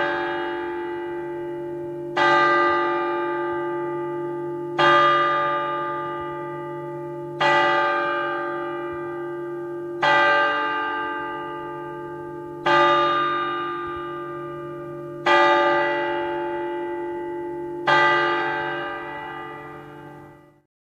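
A single large cathedral bell tolling at an even pace, struck about every two and a half seconds on the same note, each stroke ringing on and fading until the next. The last ring is cut off near the end.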